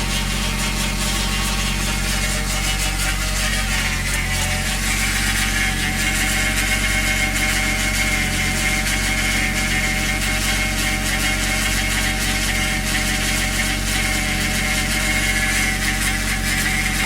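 Toyota 1JZ VVT-i straight-six idling, with a steady high-pitched noise over the engine note that grows stronger about four to five seconds in. The owner links this noise to oil pressure on a cold engine, running on a new oil pump and 10W-60 oil.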